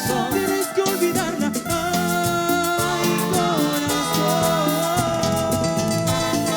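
Live tropical dance band music with percussion keeping a steady beat. A sung line trails off in the first couple of seconds, then held instrumental notes carry on.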